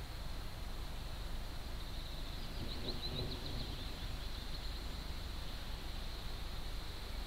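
Steady low outdoor rumble of open-air background noise, with a short rapid trill of high chirps from a bird about three seconds in.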